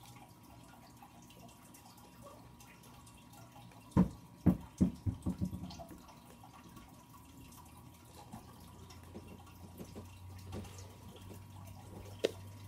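Faint room tone broken about four seconds in by a quick run of about six thumps that fade over a second and a half. A low hum comes in about halfway, and there is a single sharp click near the end.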